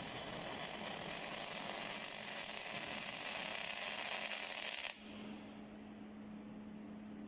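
Welding arc hissing and crackling steadily, cutting off abruptly about five seconds in; a steady low hum remains after the arc stops.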